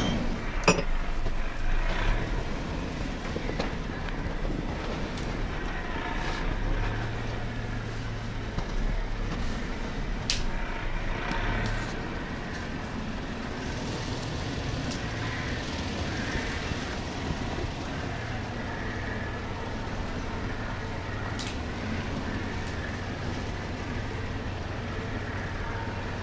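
Off-road vehicle driving slowly through snow, its engine running with a steady low drone. A few sharp knocks and clicks cut through it now and then.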